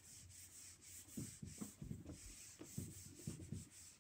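Faint rubbing of a handheld whiteboard eraser wiping marker off a whiteboard in quick, repeated back-and-forth strokes.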